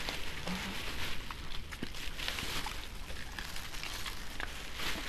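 Dogs shuffling about on dry leaf litter: a crackly rustling with scattered small crunches and clicks, and one brief low sound about half a second in.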